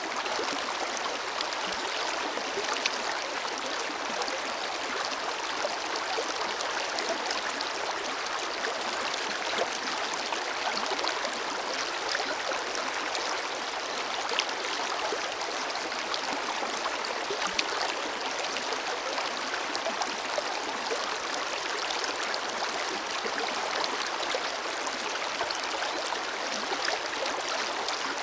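Forest river flowing: a steady rush of water over stones, with small splashes and gurgles scattered through it.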